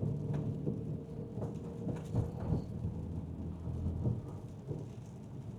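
Cabin noise of a Mercedes driving on a wet road in heavy rain: a steady low rumble of tyres and engine, with faint scattered ticks of rain on the car.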